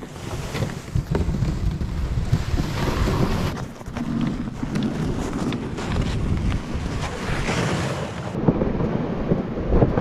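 Plastic sled loaded with boards dragged by hand over packed snow: a continuous scraping hiss from the sled sliding, with wind buffeting the microphone.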